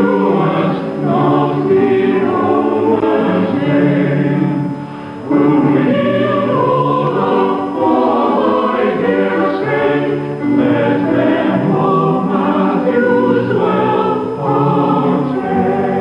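Combined church choirs and choral society singing together in sustained, many-voiced phrases, with a brief break between phrases about five seconds in. It is heard from an off-air cassette recording of a radio broadcast.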